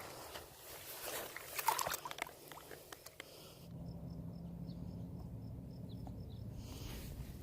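Scattered rustling and clicking, like steps and handling on a grassy bank, for the first few seconds. Then a steady low hum sets in, with faint high chirps repeating about four times a second over it.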